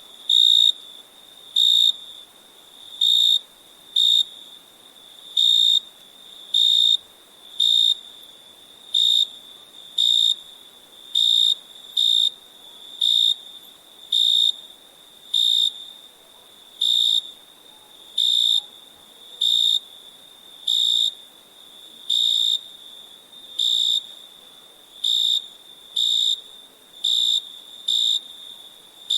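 Crickets chirping: a loud high chirp about once a second, each lasting a fraction of a second, over a constant fainter high trill.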